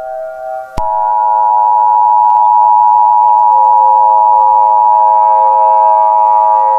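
Emergency Alert System attention signal: a steady, loud electronic two-tone alarm begins sharply about a second in and holds unbroken. Fainter steady tones sound with it. It is the alert tone that precedes a tornado warning message.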